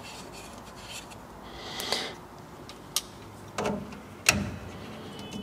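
Handling noise of a laser cutter's nozzle assembly being pushed back up into its lens tube holder: a soft rub around two seconds in, a sharp click about three seconds in, and two light knocks near four seconds.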